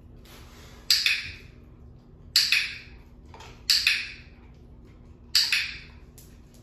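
Four sharp clicks, about a second and a half apart, each trailing off over half a second.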